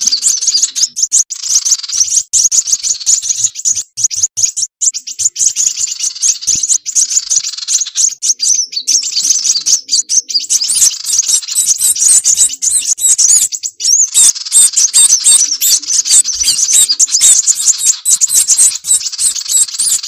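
Bird-lure track of sunbird (kolibri wulung) calls combined with sirpu bird calls: a dense, unbroken run of rapid, high-pitched chirps and twitters.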